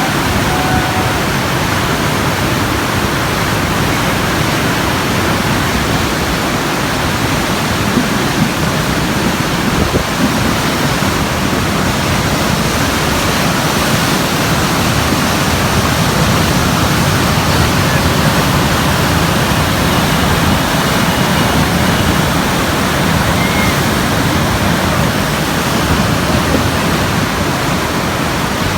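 Floodwater rushing loudly and steadily, a continuous churning of fast-moving water.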